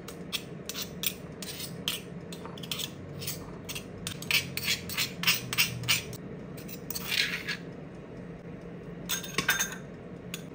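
A stone pestle pounding garlic, chilli and tomato into a paste in a stone mortar, sharp knocks about three a second. It stops after about six seconds, and a metal spoon scrapes the paste out of the mortar, with a few clinks near the end.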